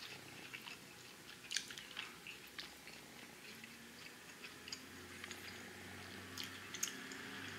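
A person chewing a mouthful of soft bacon-and-egg rice-noodle pancake (河粉煎蛋餅) close to the microphone: faint, scattered wet mouth clicks and chews.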